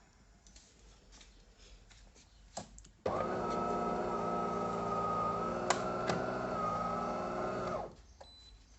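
De'Longhi Dinamica Plus bean-to-cup coffee machine starting up suddenly about three seconds in and running with a steady, even-pitched hum for nearly five seconds before stopping, with two sharp clicks partway through.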